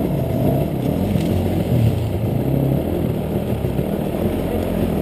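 Enduro dirt bike engines running at low, uneven revs as one bike climbs a rocky slope and pulls up.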